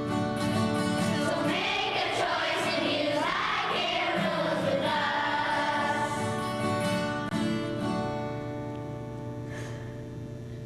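Music: a song with a singing voice over steady held instrument chords, fading out near the end.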